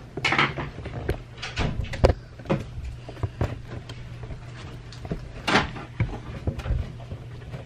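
Scattered knocks, clicks and rustles over a steady low hum.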